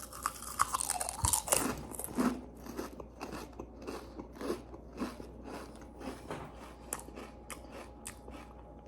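Potato chips (Lay's Spicy Dill Pickle) being chewed close to the microphone: a run of crisp crunches, densest and loudest in the first couple of seconds, then steadier crunching.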